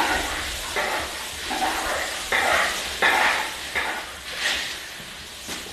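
Bamboo wok brush scrubbing a wok in repeated scraping strokes, about one every three-quarters of a second.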